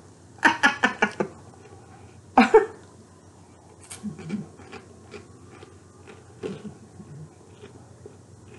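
A dog giving a quick run of about six short yaps, then one louder bark about two and a half seconds in, followed by faint scattered small sounds.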